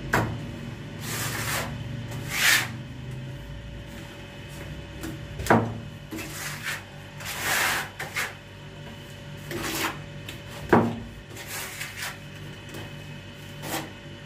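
Steel trowel scooping cement tile mortar and scraping it onto a wall in repeated rasping strokes, with sharp clinks of the trowel striking the mortar pan four times.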